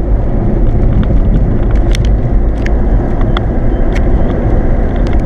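Steady road and engine noise inside a moving car's cabin, a dense low rumble, with a few light clicks scattered through it.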